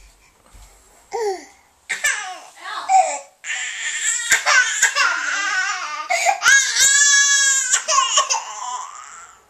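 Baby crying: a short whimper about a second in, then continuous wailing that peaks in one long high-pitched wail about two-thirds of the way through and fades out near the end. A few sharp knocks sound under the crying.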